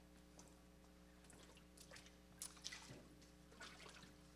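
Faint sloshing and dripping of water as a person steps down into a baptismal tank, over a steady low hum.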